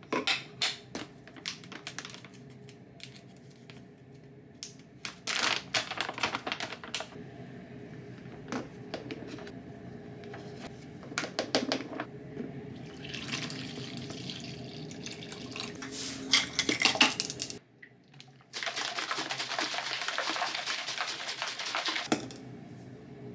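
Household kitchen sounds: scattered clicks and clatter of things being handled, then water running from a tap, with a steady spell of running water for about four seconds near the end before it shuts off.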